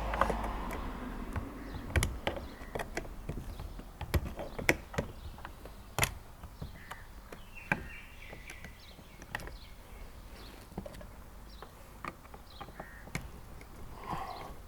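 Scattered small clicks and knocks of hands and tools working loose a car's interior door trim panel, with birds calling faintly in the background.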